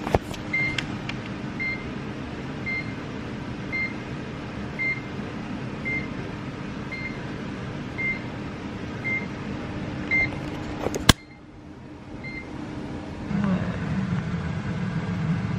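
Kitchen oven running with a steady hum while its timer beeps about once a second, the signal that the cake has finished baking. About eleven seconds in there is a sharp click and the hum and beeps cut off.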